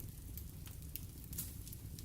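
Fire crackling in a fireplace: a steady low rumble of the flames with scattered sharp pops, the loudest about one and a half seconds in.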